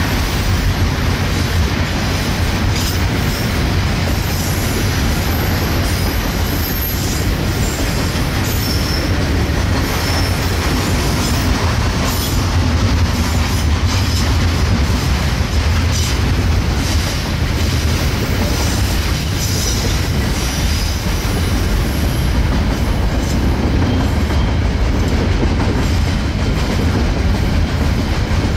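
Long, heavy freight train rolling past on a climbing grade: a steady, loud low rumble, with scattered clicks and short high squeals from the wheels.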